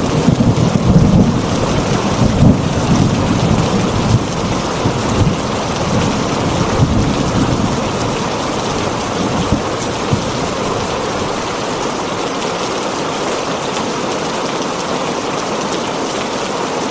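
Heavy rain drumming steadily on a tin roof, with a low rumble of thunder in the first few seconds that dies away.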